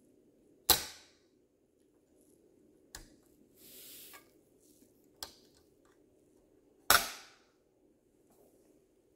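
Opening panels of a 1:18 die-cast model car snapping shut: a sharp click as the front bonnet is pressed closed about a second in, a few fainter clicks and a brief rustle in the middle, and another loud snap near the end as a door is shut.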